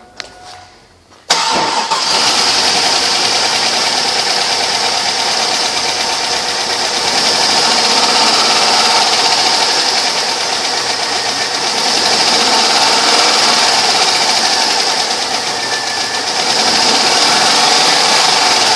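Chevrolet Avalanche's 5.3-litre V8 starting about a second in, then running steadily, its level swelling and easing a few times.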